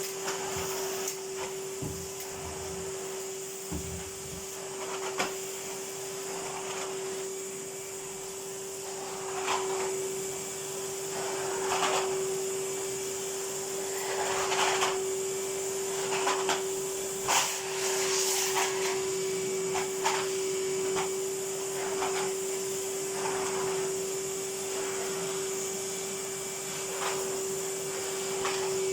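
Numatic Henry vacuum cleaner running with a steady motor hum. From about a third of the way in, its floor tool makes short swishing strokes every couple of seconds as it is pushed over a carpet.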